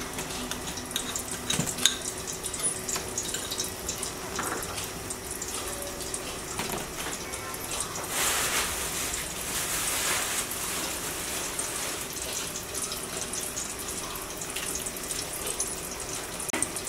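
Melted ghee heating in a large aluminium pot on the stove, giving a steady hiss with scattered small crackles. The hiss grows denser for a few seconds around the middle.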